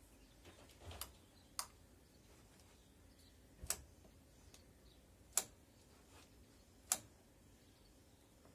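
Five faint, sharp clicks spaced one to two seconds apart, from the controls on a Harley-Davidson Heritage Softail being worked before starting. The engine is not yet running.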